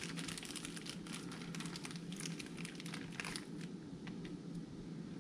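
Small plastic parts bag crinkling and rustling while tiny screws are fished out of it; the crackle dies down about three and a half seconds in.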